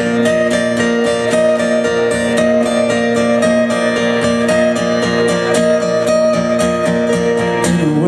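Acoustic guitar strummed in a steady rhythm of chords, played live as the instrumental intro of a song.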